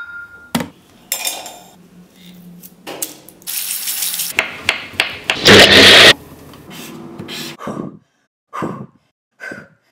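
Tap water running into a basin for a couple of seconds around the middle, loudest just before it stops, among scattered clicks and knocks. A brief electronic beep sounds at the very start, and a few short knocks come near the end.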